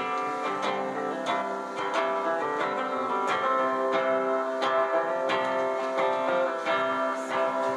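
Solo guitar strummed in a steady rhythm, chords ringing on with a sharp accented strum about every two-thirds of a second.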